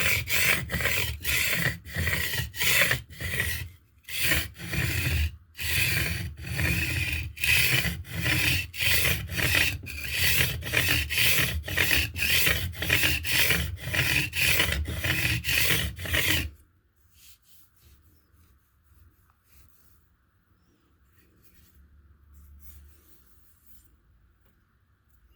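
A steel blade being ground back and forth on a limestone sharpening stone: quick, regular rasping strokes, with two short pauses about four and five seconds in. The strokes stop suddenly about sixteen seconds in.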